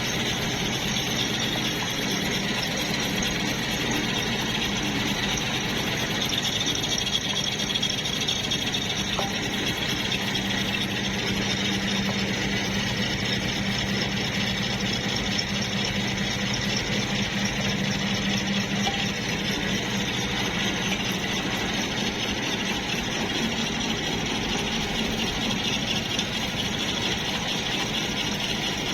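Electric arc welding on a steel shaft: a steady crackle and hiss of the arc over the welding machine's hum, cutting off abruptly at the end.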